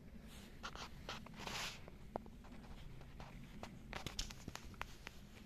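Faint, scattered crunches and clicks of footsteps on a gravel road, with a few sharper ticks near the end.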